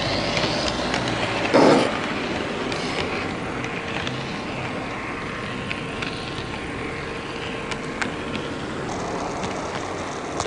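16-gauge (1/80 scale) model train running along the track, heard from a camera riding on it: a steady whir of the motor and wheels with scattered clicks as the wheels cross rail joints. A brief louder rumble comes about one and a half seconds in.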